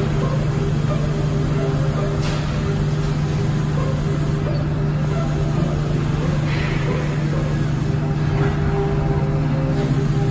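LVD laser cutting machine running while it cuts sheet steel: a steady low hum with a short hiss every two to four seconds.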